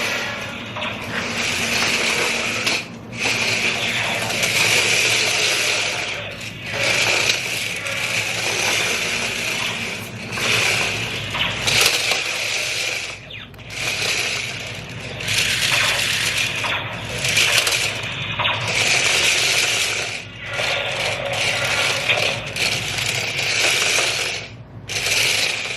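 Small electric motors and plastic gearboxes of RC laser-tag toy tanks whirring and rattling as they drive and turn, in stretches of a few seconds that stop and start again.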